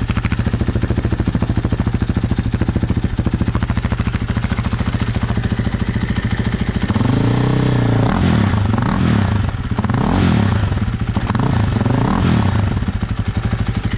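KTM 500 EXC-F single-cylinder four-stroke idling through an FMF 4.1 slip-on muffler with an even, steady beat. From about seven seconds in it revs up and down several times in quick throttle blips, then settles back to idle. The bike still has its stock ECU and smog parts, and the owner finds it runs lean and hot.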